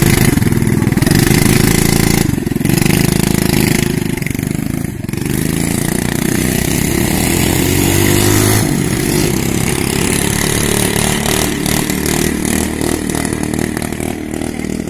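Quad bike (ATV) engine running close by, its pitch rising and falling as it is throttled up and eased off.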